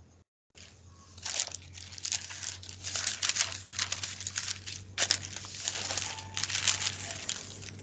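Paper rustling and crinkling close to a microphone in irregular crackles, starting about a second in, over a steady low electrical hum.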